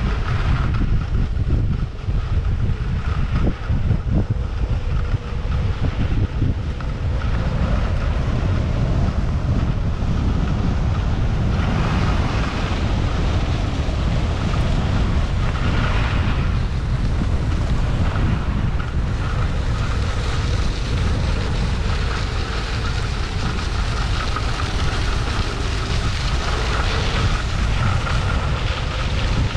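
Wind buffeting a GoPro's microphone while skiing fast down a groomed cat track: a steady rumble under the hiss and scrape of skis running on packed snow.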